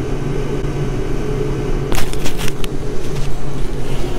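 Steady rumble of water running through the supply piping into a new electric water heater as the tank fills. From about two seconds in there is a run of sharp clicks and knocks.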